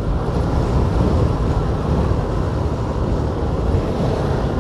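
Motorcycle engine running under way in traffic, a steady low rumble mixed with wind noise on the microphone.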